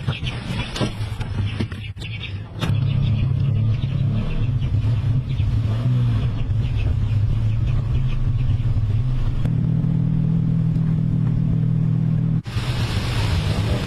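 Car engine running steadily after it comes in suddenly about two and a half seconds in, preceded by a few clicks. Near the end it cuts abruptly to a different, hissier sound.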